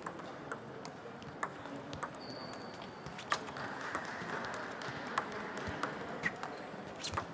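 Table tennis rally: the ball clicking sharply and irregularly off the bats and the table, with more clicks from other tables in play in a large, echoing hall.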